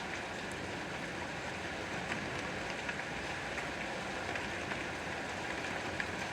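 Steady rain falling: an even hiss with scattered small drop taps.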